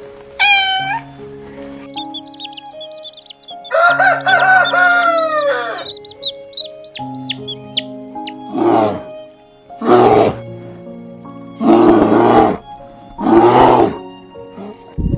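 A rooster crowing once, a long call that drops in pitch at its end, with small high peeping chirps before and after it. Then come four harsh, noisy calls, all over steady background music.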